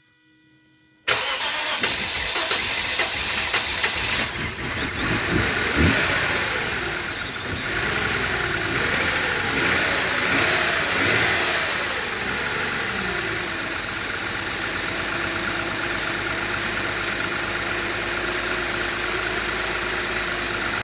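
2010 Lexus IS250's V6 engine starting about a second in and running, now driven through a shorter serpentine belt that bypasses the seized AC compressor. Its pitch rises and falls a few times, then it settles to a steady idle.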